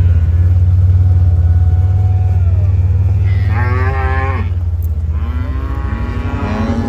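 Beefmaster cows mooing: two long calls, the second one longer, over the steady low hum of an idling vehicle engine.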